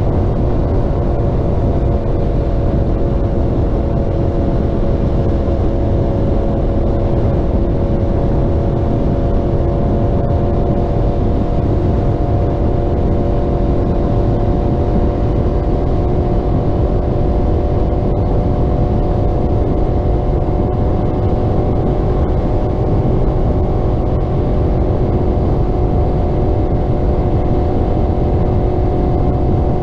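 Yamaha R1 inline-four with a Graves aftermarket exhaust cruising at a nearly steady engine speed, its note holding almost level over a dense low rumble of wind on the microphone.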